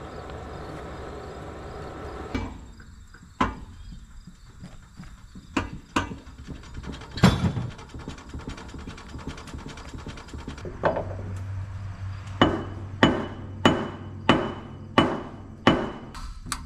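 Metal clanks and knocks from a steel bar levered against the jacked-up rear wheel of a 1949 Case LA tractor, rocking the drivetrain to free its seized 403 cubic inch engine; the loudest clank comes about seven seconds in. Near the end, a run of evenly spaced sharp metallic taps, about one and a half a second.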